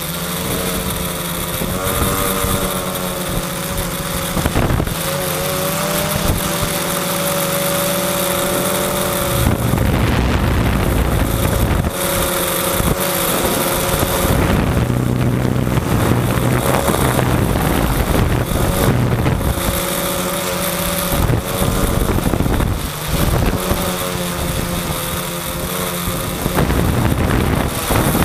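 Student-built quadcopter's electric motors and propellers whirring close to the microphone, with pitched tones that waver and shift as the motor speeds change. At times this is masked by wind buffeting the microphone.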